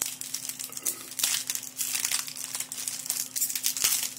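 Foil Yu-Gi-Oh Battle Pack: Epic Dawn booster pack wrappers crinkling as they are handled, a dense run of irregular crackles.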